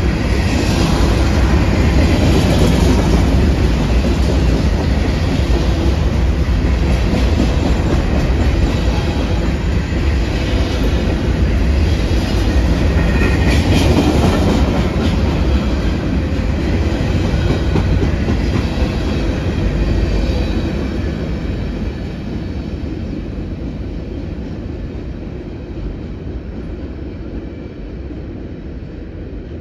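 Freight train of covered hopper cars rolling past close by, steel wheels running over the rails. It dies down over the last several seconds as the end of the train passes and draws away.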